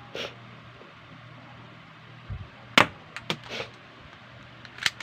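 Spring-powered M1911A1 airsoft pistol fired, a single sharp snap just under three seconds in, followed by a few lighter clicks and taps and another click near the end.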